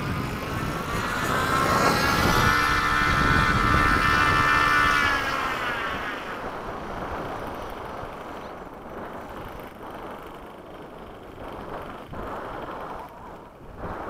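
Freewing F-22 RC jet's 90mm electric ducted fan on a 6S power setup whining as it makes a pass: the whine swells about a second in, is loudest for a few seconds with its pitch bending, then fades away. Wind rumbles on the microphone throughout.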